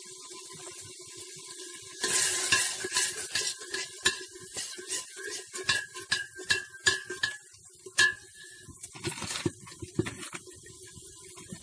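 Long steel spoon stirring masala frying in oil in a brass pot, over a steady sizzle. From about two seconds in the spoon clinks and scrapes against the pot, about three strikes a second with the brass ringing briefly after them, easing off near eight seconds, with a rougher scrape a little later.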